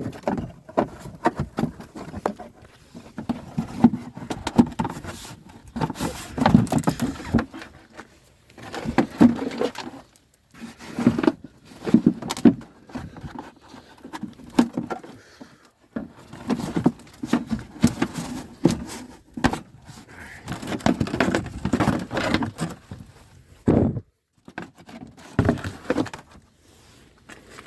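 Plastic inner fender liner in a car's wheel well being worked loose and bent back by hand: irregular scraping, rustling and knocks, with short pauses.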